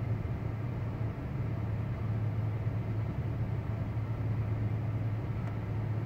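Steady low hum inside the cabin of a 2016 Chrysler 300 with the car running: a constant drone that does not change in pitch or level.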